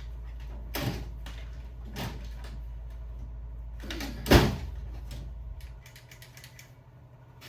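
Clunks and knocks of objects being handled, three in all, the loudest about four seconds in, over a low steady hum that cuts off about six seconds in.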